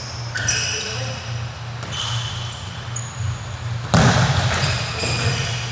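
Basketball game play on an indoor court: sneakers squeaking on the floor in short, high chirps, and one loud thud about four seconds in, over a steady low hum.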